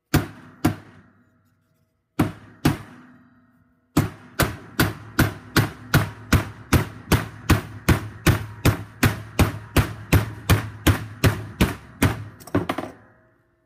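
Hammer blows on a homemade PVC-pipe driver, pressing an oil pickup tube into a Mopar high-volume oil pump. Two blows, a pause, two more, then a steady run of about three blows a second for about eight seconds, ending in a few quicker, lighter taps.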